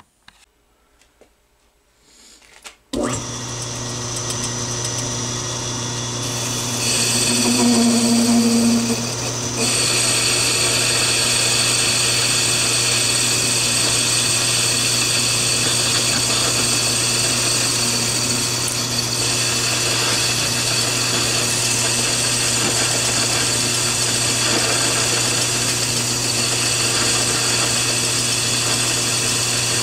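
Metal lathe running while a turning tool cuts a steel part. It starts abruptly about three seconds in and runs steadily, a hum with a high whine over it, getting louder about ten seconds in.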